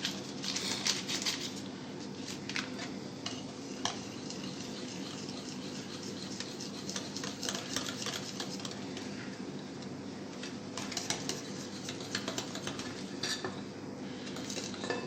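A utensil stirring batter in a mixing bowl, with frequent clinks and scrapes against the bowl, as flour and baking powder are worked into an egg, sugar and oil mixture. A steady low hum runs underneath.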